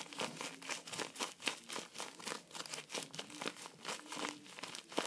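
Homemade paper squishy cube being squeezed again and again, its taped paper crinkling in quick, dense crackles, with one louder crackle near the end.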